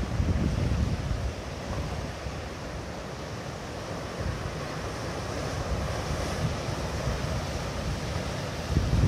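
Wind buffeting the microphone in gusts over a steady wash of ocean surf, with the gusts strongest at the start and again near the end.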